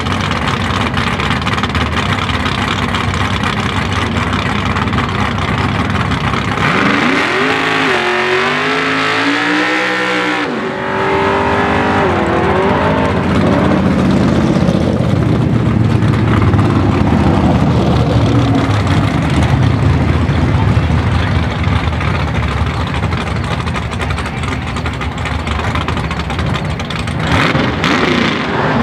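Drag car engine revving hard through a burnout, its wheels spinning and throwing tire smoke. The pitch wavers up and down for several seconds near the middle, then settles into a steady loud run.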